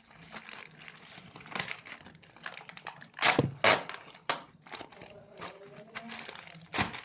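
Packaging crinkling and rustling in irregular bursts as a parcel is unwrapped by hand, loudest about three seconds in.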